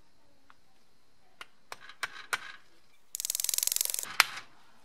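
Small metal parts of a breast drill's gear housing clicking as gears are fitted: a few separate clicks, then a rapid run of ratcheting clicks for about a second, ending in one sharp click.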